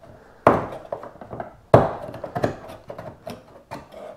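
Knife blade shaving the raised plastic high spots around factory screw holes off a kayak hull: a few sharp scraping strokes, the two loudest about half a second and just under two seconds in, followed by lighter ones.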